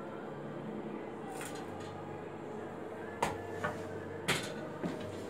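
Several sharp knocks of short wooden blocks being handled and set against each other, the loudest a little past three seconds and just past four, over a steady low hum.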